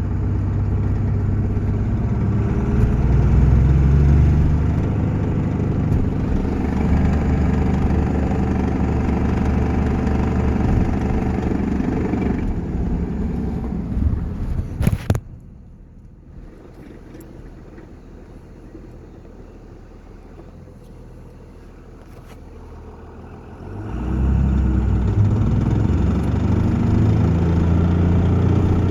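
A 2001 Cummins 5.9-litre diesel running with a rattle that sounds almost like an exhaust leak. It is loud for about half the time, then drops off sharply after a click and is much quieter for several seconds, before coming back loud near the end.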